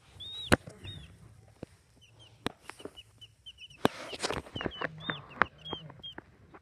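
Drowsy baby chicks peeping softly, many short rising-and-falling chirps from several birds, with a few sharp clicks among them.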